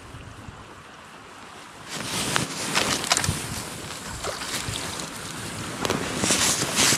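Steady rush of a fast, high river mixed with wind on the microphone. It grows louder about two seconds in, with scattered short rustles and knocks from handling, strongest near the end.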